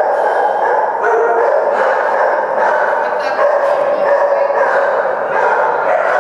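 Many dogs in a tiled kennel hall barking and yelping over one another in a continuous din.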